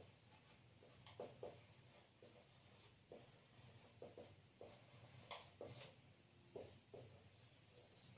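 Faint strokes of a marker pen writing on a whiteboard, a short scrape every second or so.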